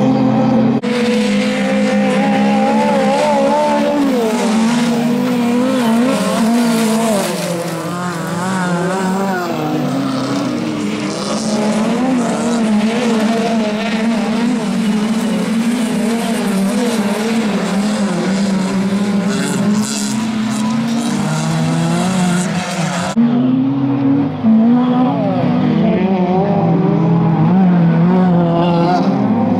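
Several autocross touring-car engines revving hard at once, their pitch rising and falling with throttle and gear changes as the cars race over loose dirt. The sound changes abruptly about a second in and again about two-thirds of the way through.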